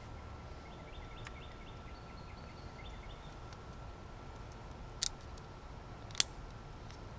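Two sharp clicks a little over a second apart, the second louder, from handling a replacement power door lock switch and its plastic retaining clips.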